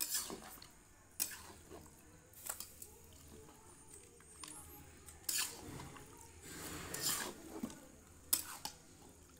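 Metal spatula stirring and scraping chunks of meat in a steel kadai: irregular scrapes and clinks about a second apart.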